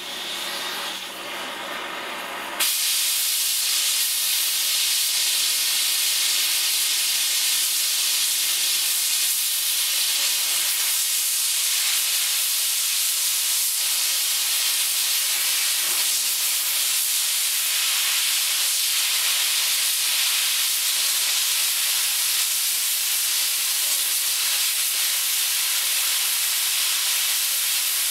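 Oxy-acetylene cutting torch cutting through a metal fence post: a flame hiss for the first couple of seconds, then a sudden jump to a loud steady hiss as the cutting oxygen jet is opened and the cut proceeds in a shower of sparks.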